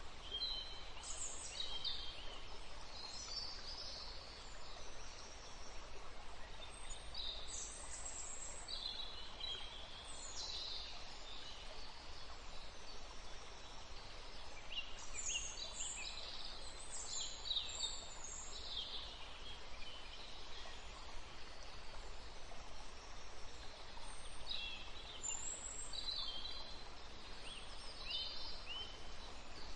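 Small birds chirping and twittering in short high phrases that come in clusters, over a steady hiss.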